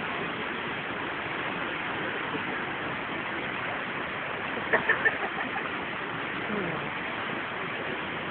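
Steady rush of falling water from the Krka river's cascades. Three short, sharp sounds stand out about five seconds in.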